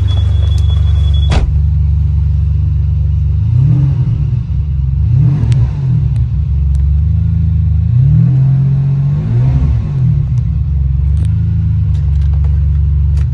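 2001 Ferrari 550 Maranello's V12 engine idling, then blipped several times in two spells, a few seconds in and again about two-thirds through, the revs rising and falling quickly before settling back to idle.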